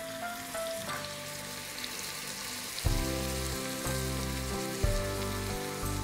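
Chopped onion and celery sizzling in olive oil and butter in a stainless steel pot, a steady frying hiss. Soft background music with a bass line comes in about three seconds in.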